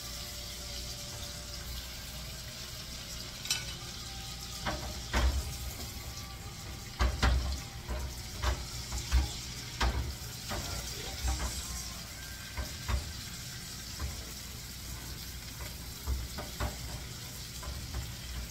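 Pork chops sizzling steadily in butter in a skillet, with repeated clicks and knocks of metal tongs and a spoon against the pan as the chops are basted and handled.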